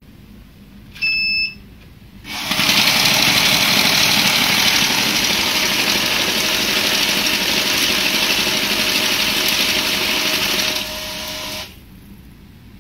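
Banknote sorting machine giving a short beep, then its note-feed rollers whirring steadily as it counts a stack of about a hundred notes. Near the end it runs on more quietly for a moment and then stops.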